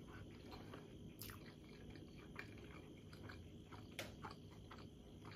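A person faintly chewing a mouthful of steamed manti dumpling with sour cream, with scattered small wet mouth clicks, two of them sharper, about a second in and near the end.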